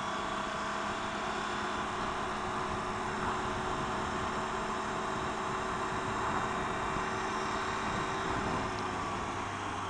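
Triumph Tiger 800 XRt's three-cylinder engine running steadily while riding at road speed, with wind noise on the microphone.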